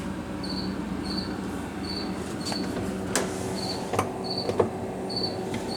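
Whirlpool refrigerator running with a steady low hum, while a short high-pitched chirp repeats about every two-thirds of a second. A few light clicks come about three and four seconds in.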